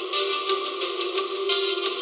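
Background music with a steady beat of hi-hat and cymbal strokes, about two a second, over a held note.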